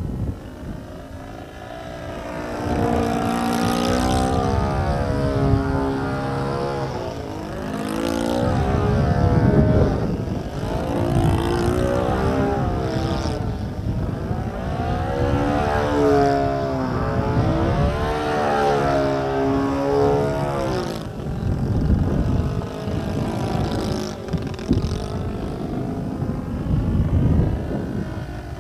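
Radio-controlled 3D aerobatic model plane flying overhead, its motor and propeller whine sweeping up and down in pitch as the throttle changes and it passes, over a low rumble.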